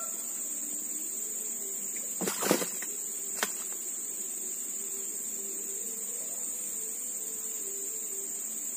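Steady, high-pitched insect drone from crickets or cicadas, with a few brief clicks about two and a half seconds in and a sharper one a second later.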